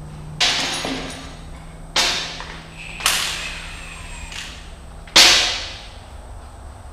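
Four sharp metallic knocks, each ringing briefly before fading. They come from work at the steel final drive hub of a Cat D3C dozer, and the last is the loudest.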